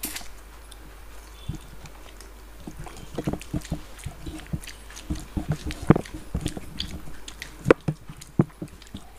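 Close-miked eating: chewing and lip smacks as rice and curry are eaten by hand. It is an irregular run of short clicks and smacks that gets busier after about three seconds.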